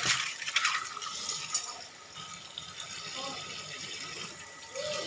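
Water running from a kitchen tap into the sink as dishes are washed by hand, with a few light clinks of dishes near the start.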